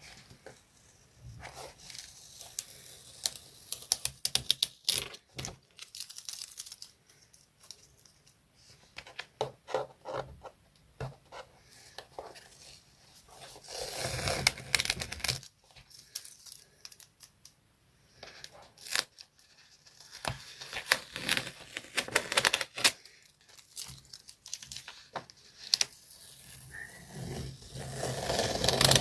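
Colouring on paper close to the microphone: a run of short, scratchy drawing strokes and paper rustling, with two longer, louder noisy swells about halfway through and near the end.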